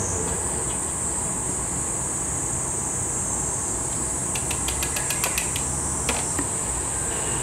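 A blown glass sake cup being knocked off its punty rod: a quick run of light, sharp glassy ticks about four and a half seconds in, then a couple of clicks as the cup is set down on the steel bench. Under it is the steady low rumble and high hiss of the glass studio's running equipment.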